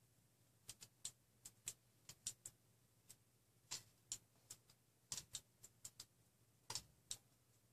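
Irregular sharp clicks and snips, about three a second, of a hand tool stripping the sheathing off thin electrical wires.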